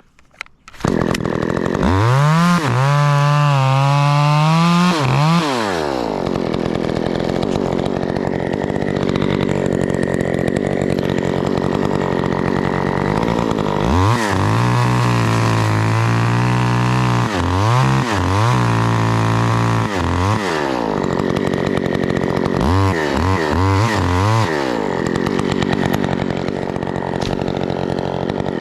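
Two-stroke chainsaw revving up about a second in, then cutting wood, with long high revs and short throttle blips later on; it shuts off at the end.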